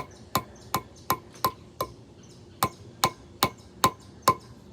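Hammer tapping a nail into a block of wood with light, regular strokes, about two or three a second, with one short pause midway: starting the nail while it is held by hand and not yet standing on its own.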